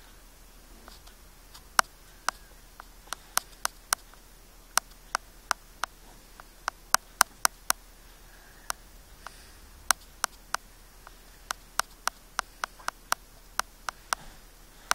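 A run of short, sharp clicks, irregularly spaced at roughly two to three a second, starting about two seconds in.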